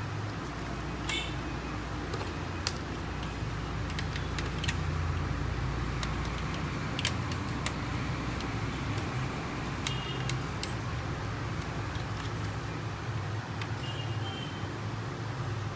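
Scattered light clicks and taps of small printer parts and screws being handled during reassembly, over a steady low hum.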